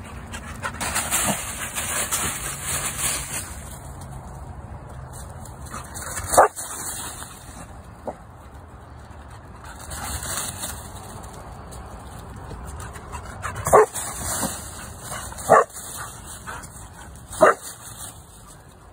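Staffordshire bull terrier giving about five short, sharp barks spread through the clip, each one on its own, between stretches of rustling as it runs through dry fallen leaves.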